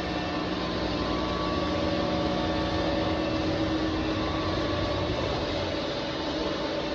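CNC bridge machining center running steadily, its spindle and drives giving a constant hum with several steady tones.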